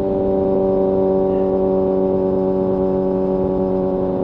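Kawasaki ZX-6R's inline-four engine and exhaust running at a steady engine speed while the motorcycle cruises, holding one even pitch over a low rushing noise.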